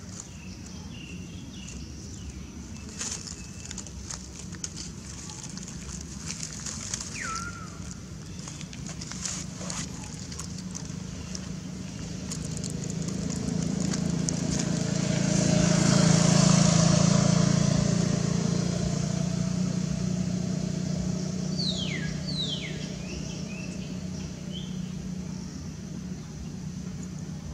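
A motor vehicle passing by, its engine and tyre noise swelling to a peak about halfway through and then fading away. A few short high calls that fall in pitch come about a quarter of the way in and again toward the end, over light clicks and rustles.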